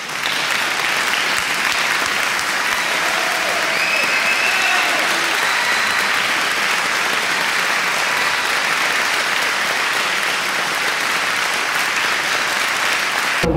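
Canned crowd applause: dense, steady clapping with a few voices cheering above it a few seconds in.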